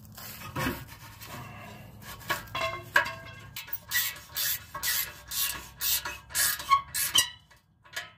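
Exhaust pipe being fitted up to its flange under the Jeep with a few metal scrapes and knocks, then a wrench tightening an exhaust flange nut in short repeated strokes, about two a second, for about three seconds before stopping.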